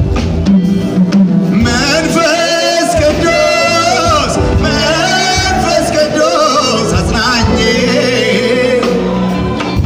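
Live Ethiopian Protestant worship song (mezmur): a male singer holding long, wavering notes over a band, played loud through the hall's sound system.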